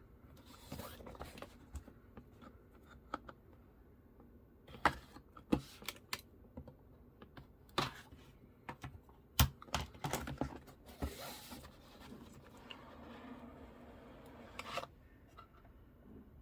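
Handling and opening the tablet's packaging by hand: irregular taps and clicks, with stretches of scraping and rustling, the longest between about ten and fifteen seconds in.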